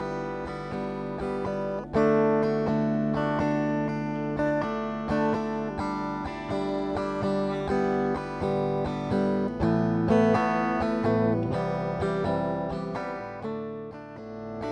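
Background music: strummed acoustic guitar playing a steady chord progression.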